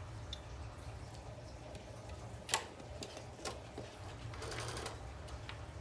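Fabric mask being handled at a Brother sewing machine's needle and presser foot: two sharp clicks, the louder about two and a half seconds in and the other a second later, and a brief rustle near the end, over a steady low hum.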